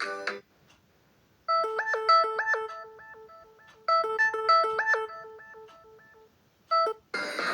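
Samsung Galaxy M32 ringtone: a short melody of clean, bell-like electronic notes, played once and then repeated, each phrase fading away. It is framed by the end of the previous ringtone at the start and the beginning of the next, fuller one near the end.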